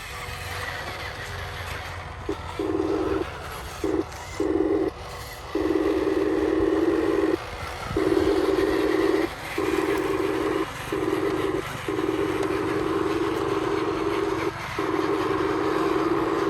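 Electric motors of a radio-controlled construction model whining in on-off spurts as the controls are worked, some spurts short and some held for a couple of seconds, over a steady low hum.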